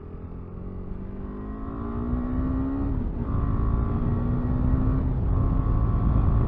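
KTM 390 Adventure's single-cylinder engine accelerating hard up a hill. The revs climb, drop at an upshift about three seconds in, climb again, and drop at a second upshift about five seconds in, getting louder as speed builds.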